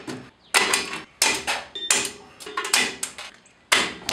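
Repeated sharp metallic clanks, each ringing briefly, about two a second. A drum brake return spring is being worked onto its holder clip with a 5/16 wrench, a fiddly fit that takes many tries.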